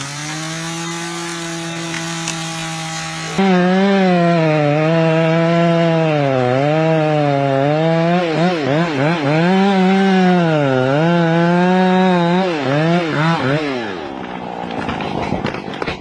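Two-stroke chainsaw running at high revs, then cutting into a big tree trunk, its pitch repeatedly dipping and recovering as the chain bogs under load. Near the end the engine drops away and sharp cracks come as the trunk splits upward from the cut.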